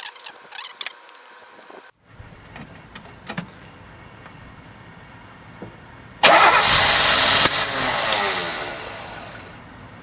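The 2.5-litre inline-six of a 1970 Mercedes 250, fed by freshly rebuilt dual Zenith 35/40 carburettors, being started: loud cranking begins suddenly about six seconds in, runs for about three seconds, then dies away.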